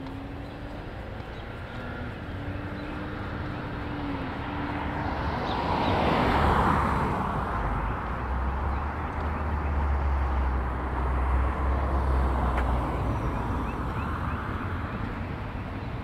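A car passes on a residential street: tyre noise swells to a peak about halfway through, and a low engine rumble lingers for several seconds before fading.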